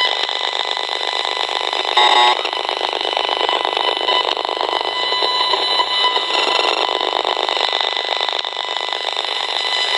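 Esmog Spion electrosmog meter's loudspeaker turning a Powerline adapter's mains-data signal into a dense, rapid crackling buzz with a few steady high tones, held near the adapter. A brief beeping chirp sounds about two seconds in.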